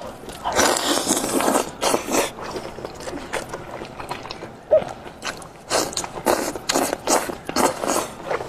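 Close-up tearing of braised sheep's-head meat pulled apart by gloved hands, in loud, rough bursts: one long tear about a second in, a shorter one soon after, then a run of several from about six seconds on. A single short sharp pop comes about halfway through.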